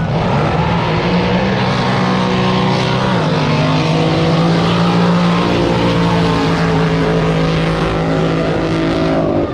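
Racing drag boat's engine running loud and steady, its pitch stepping slightly lower about three seconds in.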